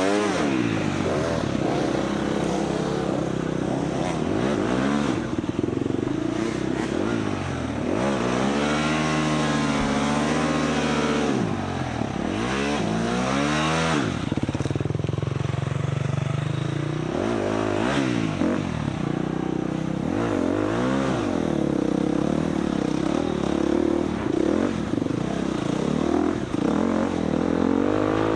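Husqvarna FX 350 four-stroke single-cylinder dirt bike engine revving up and down over and over as the rider throttles on and off through the trail, with wind and rushing noise over it.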